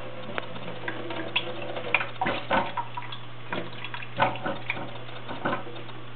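Kitchen faucet running a thin stream into a stainless steel sink, with irregular splashes, taps and clicks as a cat bats at the water and moves about on the metal sink and wire dish rack. A steady low hum lies underneath.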